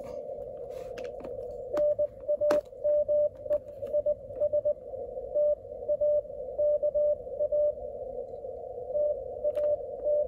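Morse code received on an Icom IC-705 transceiver: a single tone of dots and dashes keyed over the steady hiss of the receiver's narrow CW filter, starting about two seconds in, pausing briefly near the end, then resuming. Two sharp clicks sound near the start of the keying.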